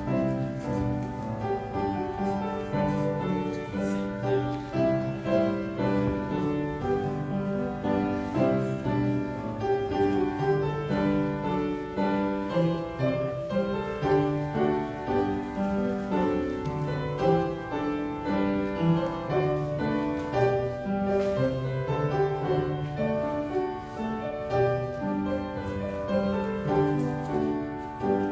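Hymn tune played on a keyboard instrument, chords moving at a steady tempo with no singing yet: the introduction to the sending hymn.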